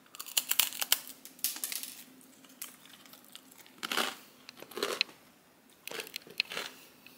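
A person biting into and chewing a whole-grain crispbread close to the microphone: a dense run of sharp, crackling crunches in the first two seconds, then shorter bursts of crunching chews a few times after.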